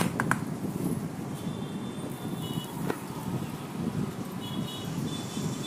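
A sharp metallic clink at the start, with two lighter clicks just after, over a steady low rumbling noise.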